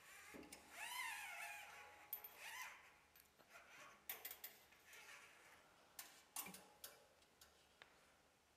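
Quiet handling of a steel throttle cable being threaded through its cable connector: the wire scrapes and squeaks in the first few seconds, with several sharp small clicks of metal and plastic.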